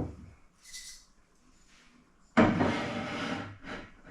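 Household items being handled on a kitchen shelf: a knock, then over a second of scraping and rustling as something is slid or shifted into place.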